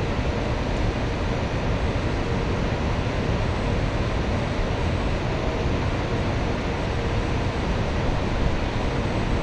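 FS E.652 electric locomotive running steadily at low speed, its cooling blowers giving a continuous rushing noise with a faint steady tone in it, under a low wind rumble on the microphone.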